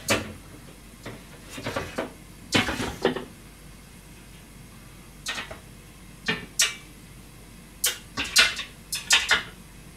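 Kitchen clatter from cookware and utensils being handled: a series of sharp knocks and clinks in small clusters, with a quieter gap around four to five seconds in.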